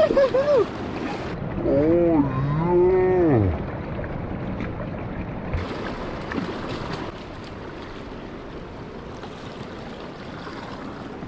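A man's long drawn-out "woo!" whoop of celebration over a landed steelhead, rising and then falling away, followed by the steady rush of river water.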